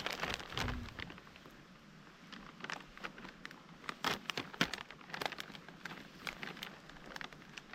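Irregular crackling and scraping clicks of a Swiss Army knife being worked against something, in uneven bursts.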